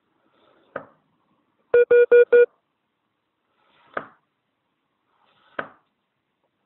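Four short electronic beeps in quick succession, all on the same pitch, about two seconds in. Single sharp clicks come before and after them.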